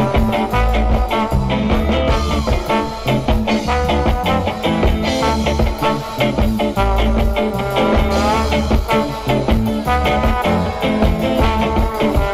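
Live band playing a song with a steady beat; no singing stands out.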